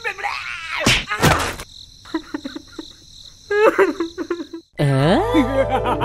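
Cartoon sound effects for squabbling animated peanut figures: squeaky, warbling character voices, two sharp thumps about a second in, and a thin steady high tone like crickets. Near the end a downward slide leads into music with a low bass note.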